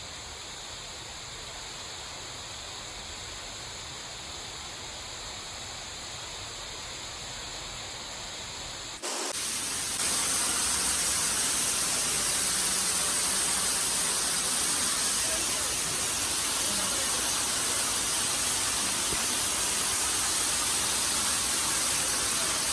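Waterfall's falling water and spray, a steady rushing hiss; it jumps suddenly louder about nine seconds in and stays steady after.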